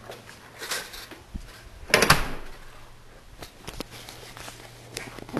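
A door into a garage being opened and shut, with one loud clatter about two seconds in among smaller clicks and knocks, over a low steady hum.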